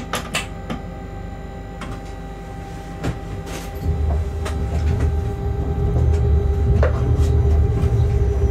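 Locomotive cab sounds: scattered clicks and knocks over a steady hum. From about four seconds in, a low rumble swells as the shunting locomotive starts moving.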